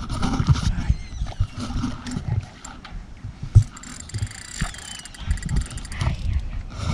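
Gusty wind buffeting the microphone in irregular low rumbles, with one sharp knock about three and a half seconds in.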